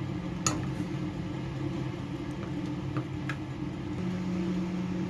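A steady low hum from a small motor or appliance, with a few faint clicks about half a second in and around three seconds.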